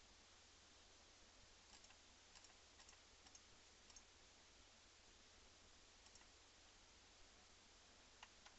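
Near silence with a few faint computer mouse clicks scattered through the first half and again near the end.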